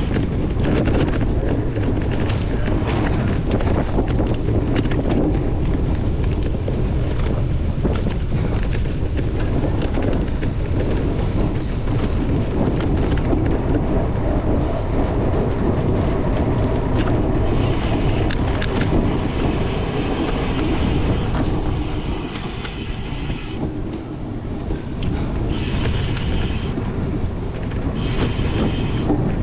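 Wind buffeting the microphone of a cyclocross bike in a race, over a steady low rumble from the tyres on rough ground, with frequent knocks and rattles from the bike.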